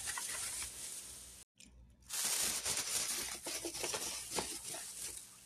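Thin plastic shopping bag rustling and crinkling as a hand rummages inside it, with a short silent break about a second and a half in.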